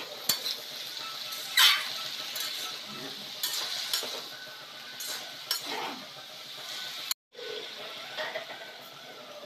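Mixed vegetables sizzling in a hot aluminium karai while a metal spatula stirs and scrapes them against the pan, with several sharp scrapes and clinks. Near the end, after a brief cut, water is poured into the pan over the frying vegetables.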